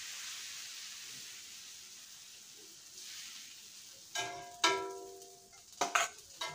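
A soft sizzle from the hot iron dosa griddle that fades, then about five sharp metallic clinks, each ringing briefly, as a steel spatula and a steel plate knock against the griddle while the dosa is taken off.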